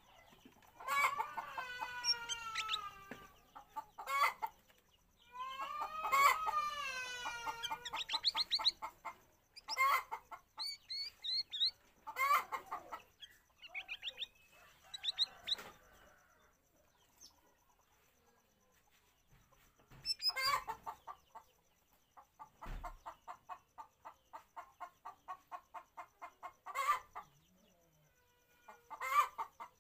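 Cucak rawis bulbul calling in bouts: gliding whistled phrases, sharp single notes, and fast chattering runs of rapid repeated notes, with short pauses between bouts.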